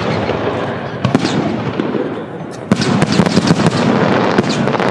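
Fireworks exploding overhead in rapid succession, a dense stream of bangs and crackles, with a fresh loud barrage about a second in and another just under three seconds in.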